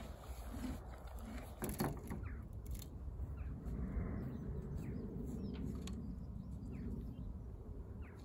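Quiet outdoor background with a steady low rumble, a few short, falling bird chirps, and a single sharp knock about two seconds in.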